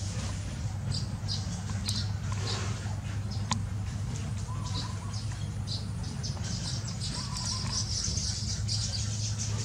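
Short, high chirps from weaver birds at a woven grass nest, coming irregularly one or two a second and crowding together near the end, over a steady low hum.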